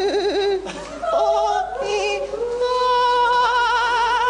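A voice singing unaccompanied, with heavy vibrato, ending on a long held note.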